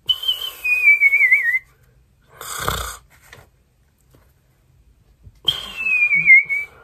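A man's mock snoring: a whistled breath out that slides down in pitch and ends in a warble, a short snoring breath in, then after a pause a second falling, warbling whistle.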